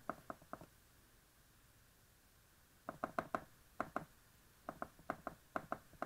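Homemade Morse straight key clicking as its magnet-returned bar is tapped down onto a metal washer contact. A few clicks right at the start, a pause of about two seconds, then quick clusters of clicks with short gaps between them: the key being used to send the word "hello" in Morse code.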